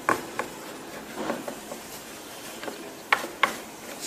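Sharp clicks and taps from small hardware being handled while a laptop motherboard is worked on: two near the start and a close pair about three seconds in.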